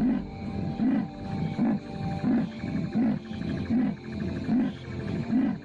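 Leopard giving its rasping sawing call: a regular series of hoarse grunts, about one every 0.7 seconds, over background music.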